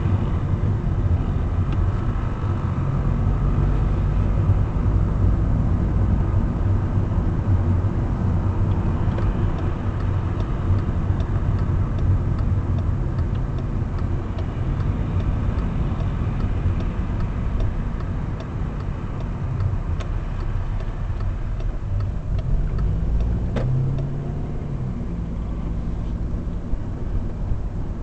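Volkswagen Golf Mk6 heard from inside the cabin while driving: steady engine and road rumble. A regular faint ticking runs through the middle for about ten seconds, and the engine note rises and falls briefly a few seconds before the end.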